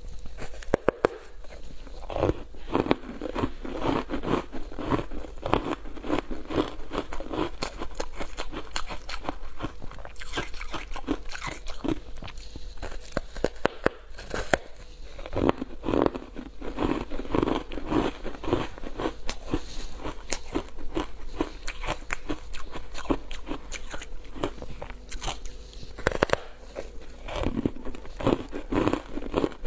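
Close-miked biting and chewing of foam ice coated in matcha powder: rapid crunching in repeated runs, with brief pauses between bites.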